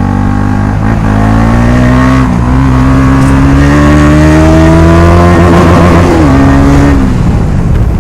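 KTM Duke motorcycle engine running with its exhaust removed, loud and open. It revs up through the gears: a brief dip in pitch about two seconds in, a long climb, then the revs fall away near the end as the throttle eases.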